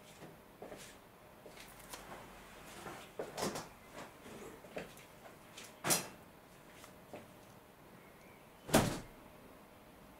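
A run of light knocks and clicks, with two louder knocks about six seconds and about nine seconds in.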